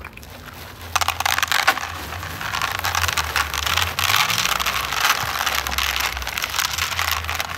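Dry dog kibble poured from a plastic bag onto a tray, a dense rattle of pellets starting about a second in, with the bag crinkling.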